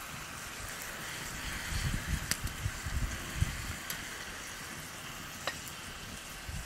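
Hamburger meat and onions sizzling in a cast-iron skillet over a campfire: a steady frying hiss with a few sharp pops, and some low bumps about two seconds in.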